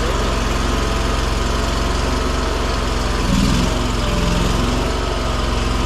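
Gas engine of a Chinese mini skid steer running steadily with the throttle up, swelling briefly louder a little over three seconds in.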